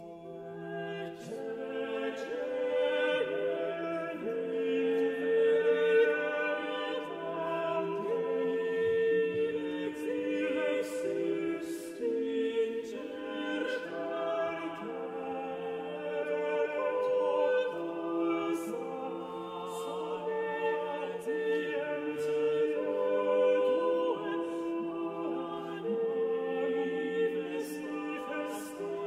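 Background music: a choir singing slow, sustained chords, the notes held and changing in steps.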